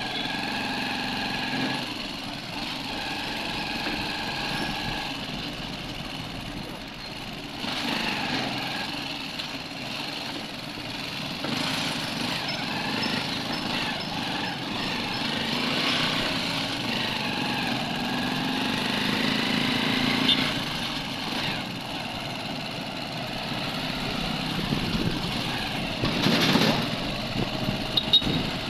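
Small motorcycle engine running steadily, its pitch rising and falling with speed, amid street traffic and road noise. A short loud noise comes near the end.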